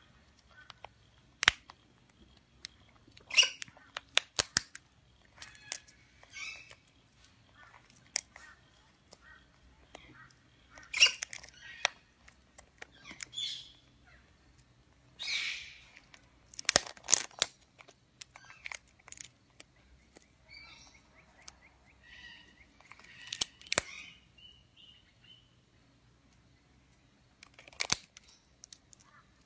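Black cockatoo cracking a walnut shell with its beak: irregular sharp cracks, between scraping and crunching of shell, with a few short chirps.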